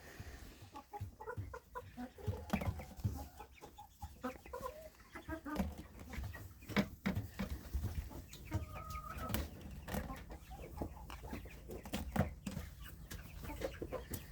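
Chickens clucking in a coop, with short pitched calls and scattered small knocks and rustles.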